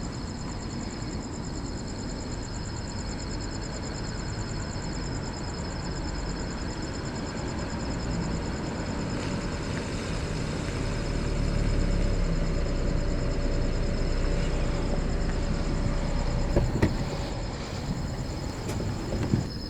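A vehicle's low engine rumble that grows louder about halfway through, over a steady pulsing high chirring like night insects, with a couple of sharp clicks near the end.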